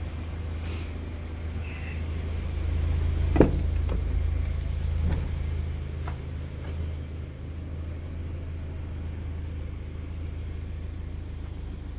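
Subaru Outback's engine idling, a steady low hum heard inside the cabin. A sharp knock comes about three and a half seconds in, with a few fainter knocks after it.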